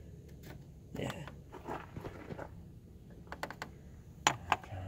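Radiator pressure cap on a Chrysler PT Cruiser being unscrewed slowly by hand: scattered small plastic clicks and scrapes, with two sharper clicks near the end.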